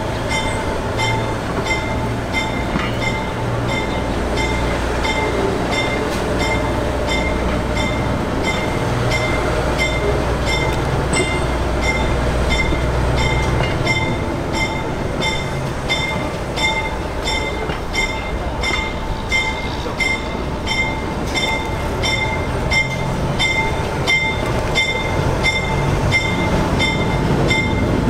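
Diesel switcher locomotive moving slowly with its engine humming low, while its bell rings steadily a little faster than once a second.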